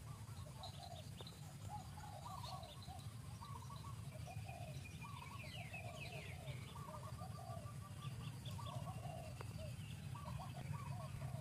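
A chorus of many short chirping calls from several animals at once, repeating and overlapping, over a low steady rumble.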